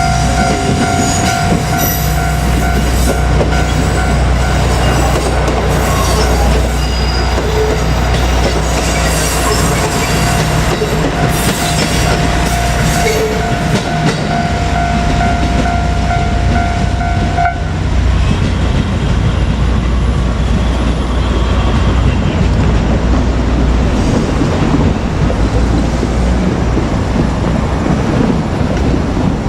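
JR Kyushu KiHa 200 diesel railcar running through a level crossing: the diesel engine is running and the wheels click over the rail joints. A level-crossing warning signal rings steadily until it cuts off abruptly about two-thirds of the way through. The train noise carries on after that.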